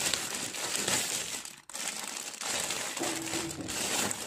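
Clear plastic packaging crinkling and rustling as hands handle it and pull a new bag out of it, with a brief break a little before halfway.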